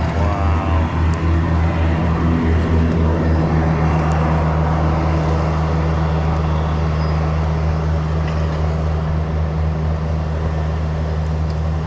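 Small gasoline engine of lawn-care equipment running loud and steady, a low drone that pulses over the first few seconds and then evens out.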